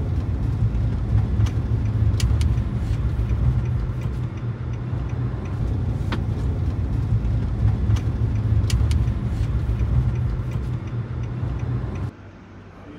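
A car driving at highway speed, heard from inside: a steady low rumble of road and wind noise with a few light clicks, cutting off abruptly about a second before the end.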